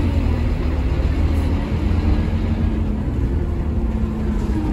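Scania K230UB city bus, its Scania DC9 five-cylinder diesel running, heard from inside the passenger cabin as a steady deep rumble with a faint engine hum above it.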